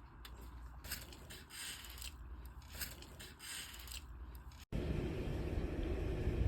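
Short, irregular scraping and rustling of something being handled and pressed. About four and a half seconds in, this cuts to a louder, steady low rumble.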